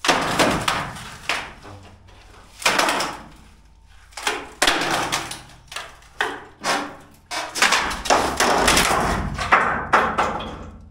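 Wooden form bracing knocking and banging as it is pried loose and knocked down: about a dozen sharp, irregular bangs, coming thicker in the last few seconds.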